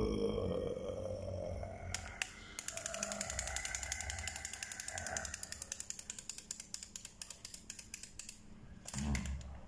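A small toy mechanism, rapid and even, clicking for several seconds like a ratchet, typical of a walking toy animal's gearbox. It is preceded by a short rising pitched sound at the start and followed by a brief low burst near the end.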